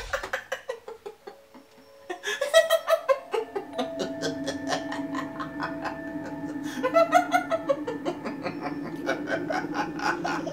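A man laughing in bursts over background music.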